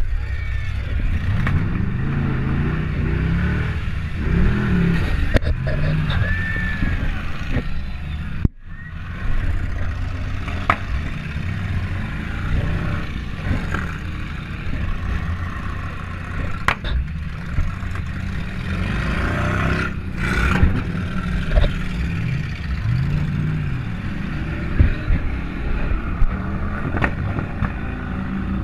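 Demolition derby car's engine revving up and down again and again, heard from inside the car, with several sharp bangs and clatters through it.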